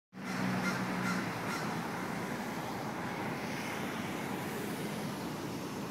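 Steady outdoor city street noise, with a low hum and a few short calls in the first second and a half.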